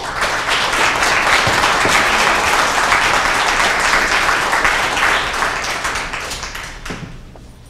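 Audience applauding: a steady round of clapping that dies away near the end.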